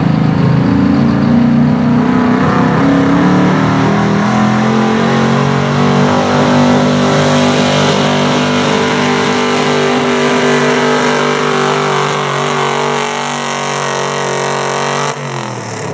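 Gas engine of a Dodge pickup at full throttle pulling a weight-transfer sled. The revs climb a little a few seconds in and then hold steady under load. About fifteen seconds in, the throttle is lifted and the revs fall away.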